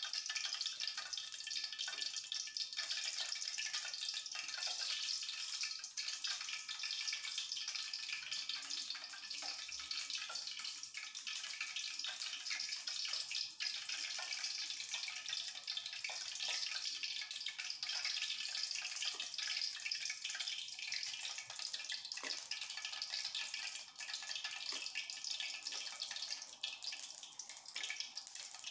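A steady high hiss, with faint scattered taps and rustles as squid rings are pressed into breadcrumbs and flour on steel plates.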